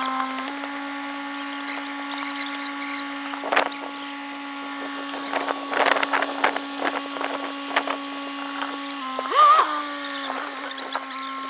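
A steady, high-pitched motor whine with a continuous pitch. It dips and wobbles briefly about nine seconds in, where there is also a louder burst, and there is scattered knocking and clatter around four and six seconds in.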